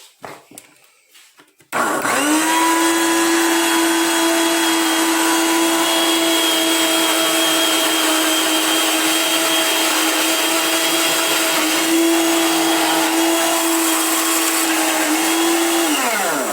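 Kitchen blender switched on about two seconds in, running steadily at one pitch while blending a wet seasoning paste of garlic, onion, bell pepper and vinegar, then switched off near the end, its pitch falling as it spins down.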